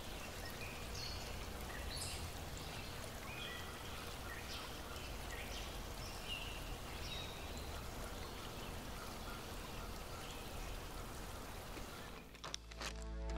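Running stream water making a steady hiss, with scattered short bird chirps mostly in the first half. Music comes in at the very end.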